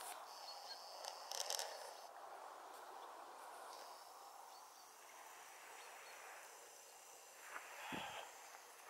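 Faint outdoor ambience: a soft steady hiss, with a brief rustle about a second and a half in and a low thump near the end.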